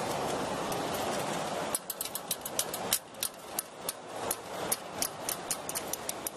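G-scale model train running on its track. A dense whirring rumble of the running train drops away about two seconds in, leaving quick, sharp clicks of the wheels over the rail joints, about five a second.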